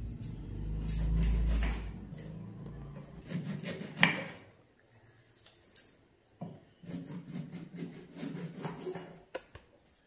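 Kitchen knife cutting lemons on a wooden chopping board: scattered knocks of the blade on the board, the loudest about four seconds in, with light clinking and rubbing from handling. A low rumble underlies the first three seconds.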